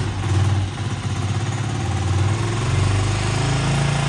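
Honda TMX 125's single-cylinder four-stroke engine idling while being warmed up after sitting unused. About two and a half seconds in, the note rises slightly and a deeper rumble joins.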